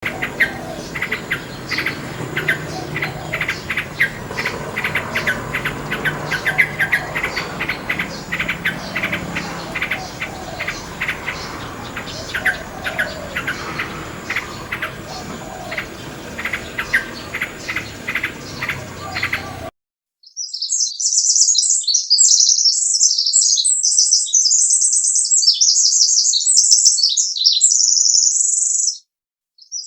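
Small songbirds chirping and calling over a steady background hiss for about twenty seconds. The recording then cuts out abruptly, and after a moment of silence a single bird sings a rapid, high-pitched song, broken once by a short pause near the end.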